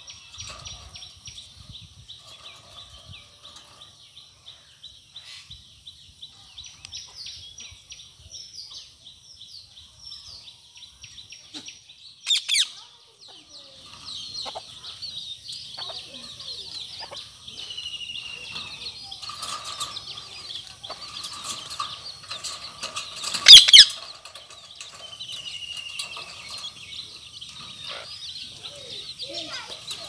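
Bird chatter in a continuous high twittering, with a few falling whistles, broken twice by a loud harsh squawk, the kind made by Indian ringneck parakeets; the second squawk is the loudest.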